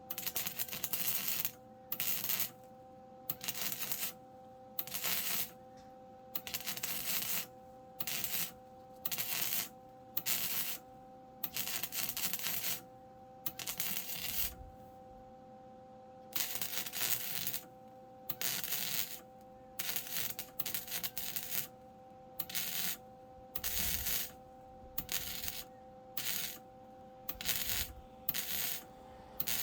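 MIG welder laying a run of tack and stitch welds on car body sheet metal: a crackling sizzle in short bursts, about one every second or so, over a steady low hum.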